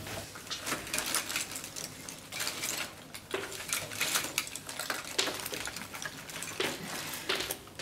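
Rummaging through a fabric pencil case, with pens and other stationery clicking and tapping on a school desk: irregular small clicks and rustles.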